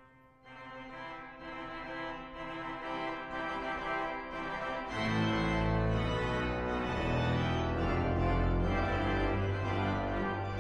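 Background music that starts softly and swells, with a deep bass coming in about halfway through.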